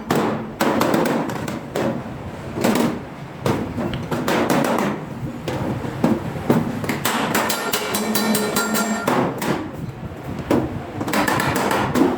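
Repeated hammer blows on sheet steel: many sharp metallic strikes at an uneven pace, several a second.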